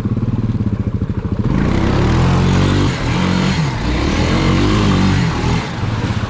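ATV engine chugging at a low idle, then revving up hard about one and a half seconds in, its pitch rising and falling under load as it churns through a deep mud hole, dipping briefly twice and dropping back to a chugging idle near the end.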